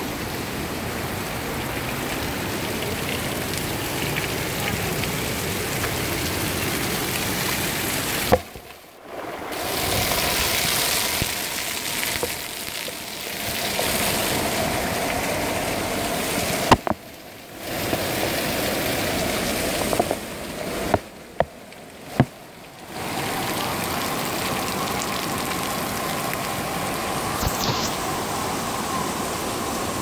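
Waterfall spilling onto a hiking trail: a steady rush of falling water and splashing spray. The sound cuts out abruptly three times, each for a second or two, with sharp clicks where it breaks off and returns.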